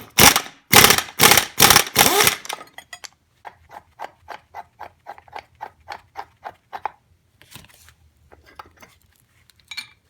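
Pneumatic impact wrench driving a flywheel puller on a Suzuki RM125 two-stroke's magneto rotor, fired in several short, loud bursts. After about two and a half seconds come light clicks, evenly spaced at about two or three a second, then a few scattered clicks.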